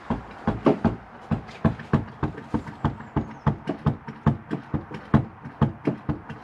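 Mazda RX8 clutch pedal being pumped over and over, knocking about three to four times a second. It meets no resistance and drops to the floor each stroke because the clutch line, with its new slave cylinder, is full of air.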